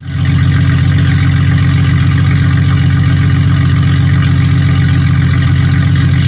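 An engine running loudly at a steady speed, cutting in abruptly at the start.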